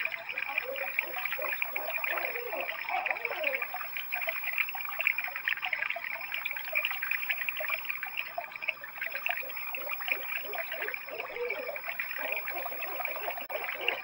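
Barred owls calling, several rising and falling hooting calls overlapping one another. They are densest in the first few seconds and again near the end, over a steady high-pitched background hiss.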